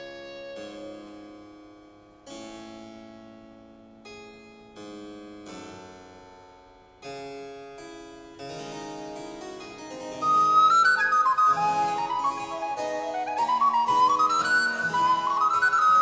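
Live Baroque duo of harpsichord and recorder. The harpsichord plays plucked chords alone, each fading away, then a recorder comes in about ten seconds in with a louder, quick melody of rising runs over the harpsichord.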